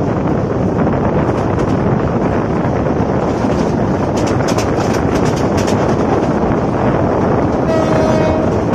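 Running passenger train heard from an open coach door: a steady rumble of the coaches with wind buffeting the microphone. A rapid run of sharp clacks comes through in the middle, and a short horn note sounds near the end.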